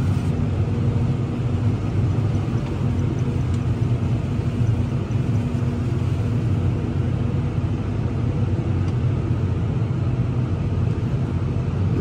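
Steady low machinery rumble heard from inside a tractor cab running alongside a Claas forage harvester chopping corn silage, with a few held low hums beneath.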